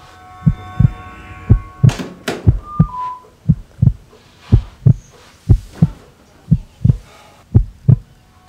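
Soundtrack heartbeat effect: paired low lub-dub thumps about once a second over a steady held drone. About two seconds in come two sharp clicks, then two short falling electronic beeps.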